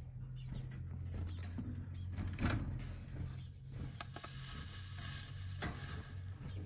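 Thin, very high, downward-slurred peeps from caged double-collared seedeaters (coleiro), repeated about twice a second, with a steady low hum underneath.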